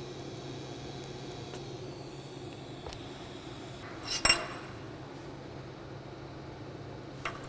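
Welded steel square tubing clinks sharply against the steel welding table, ringing briefly, as it is handled about four seconds in, with a smaller click near the end, over a steady low hum.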